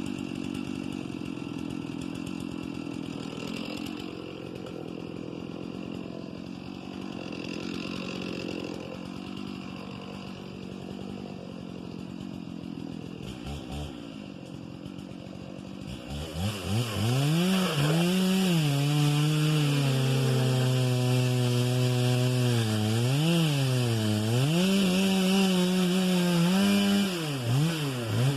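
Two-stroke chainsaw. It runs quieter for about the first half, then about 16 s in it comes up loud, and its pitch repeatedly pulls down and holds low, then rises again, as it bogs under load in the cut and revs up between cuts. This fits cutting into cedar while felling.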